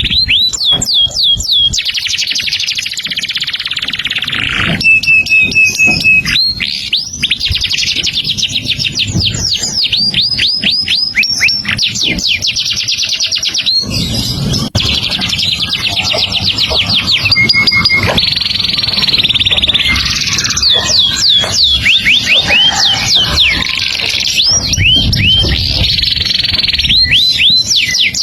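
A songbird singing nonstop: rapid runs of sharp sweeping whistles alternating with dense buzzy trills and a few short held notes.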